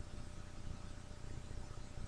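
Quiet room tone: a faint steady hiss with a low hum, and no distinct sound events.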